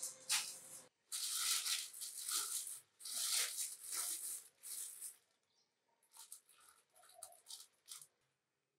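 Plastic bread bag crinkling and rustling as it is opened and slices of bread are pulled out: dense rustling for the first few seconds, then shorter, scattered crackles near the end.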